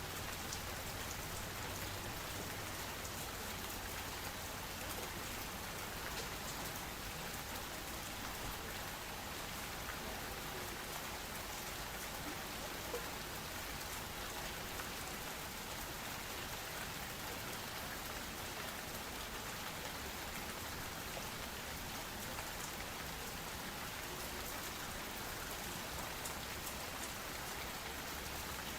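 Steady rain: an even hiss with faint, scattered ticks of drops.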